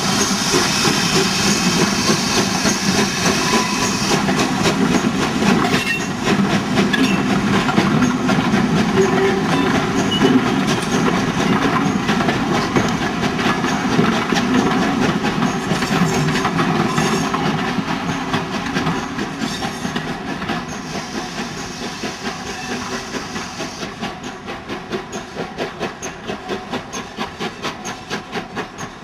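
Steam tank locomotive working hard as it passes close by, with a hiss of steam at first, then its coaches rolling past with wheels clicking over the rail joints. The sound fades as the train pulls away, leaving a regular pulsing beat near the end.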